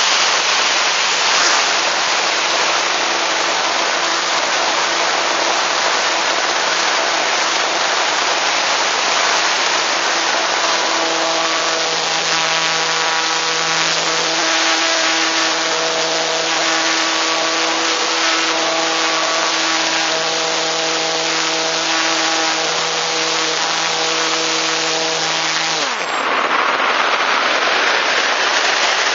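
Airflow rushing over the onboard camera of an EasyGlider RC electric glider in flight, with the electric motor and propeller giving a steady whine. The whine grows stronger about a third of the way in, then the motor is cut near the end, its pitch dropping away and leaving only the wind rush of the glide.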